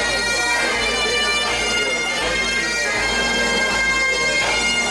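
Bagpipes playing a tune: a melody shifting every half-second or so over the pipes' steady drone, with crowd chatter underneath.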